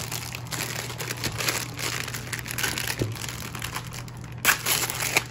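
Thin, light plastic packaging crinkling and rustling as it is opened and pulled off a hard-shell card case, with a louder crackle about four and a half seconds in.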